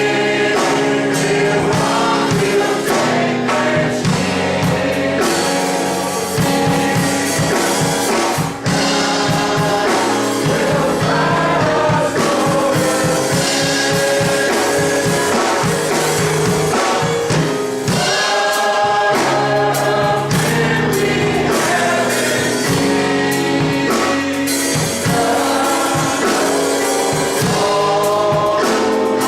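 Gospel choir singing with full band accompaniment and drums.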